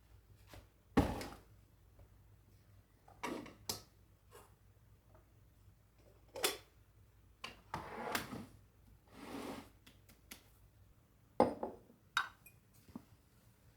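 Scattered small knocks, clicks and brief rustles of things being handled in a small room, about a dozen separate sounds with quiet gaps between, the sharpest about a second in and near the end.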